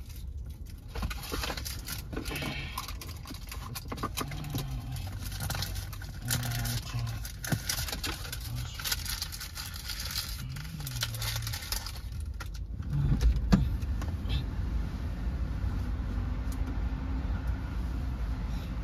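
Car driving: steady engine and road rumble with scattered light clicks, the rumble growing louder about two-thirds of the way through.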